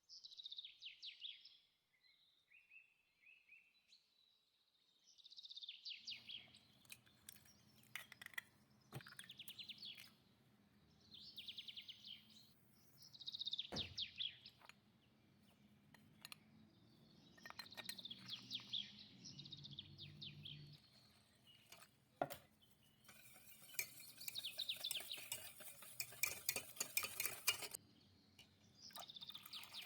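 A utensil scraping and clinking against a bowl while mixing, in repeated spells of rapid scratchy clicks a second or two long.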